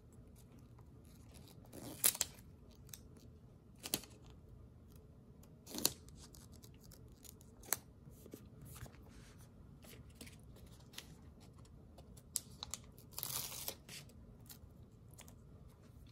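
Paper and sticker sheets handled by hand: short scratchy rustles and peels about every two seconds, the loudest about two seconds in, and a longer rustle near the end.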